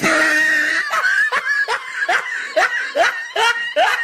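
A person laughing hard in quick, evenly spaced bursts, about three a second, after a loud high opening cry.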